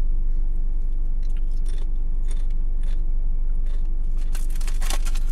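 Crunching and chewing a crisp chip, with sharp crackles here and there that come thick and fast near the end. A steady low hum of the car cabin runs underneath.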